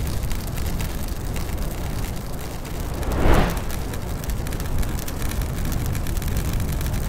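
Produced title-card sound effect: a steady low rumble with a single whoosh that swells and fades about three seconds in.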